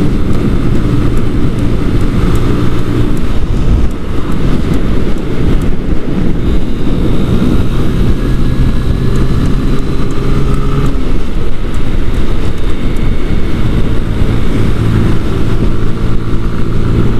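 Sinnis Akuma 125 motorcycle engine running at road speed, heard from on board with wind noise; the engine note steps up and down a few times as the throttle changes.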